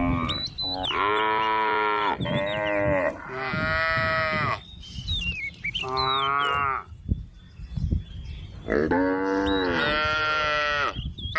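Cows mooing: a string of about seven long, pitched calls in quick succession with short gaps between, and faint high chirps in the pauses.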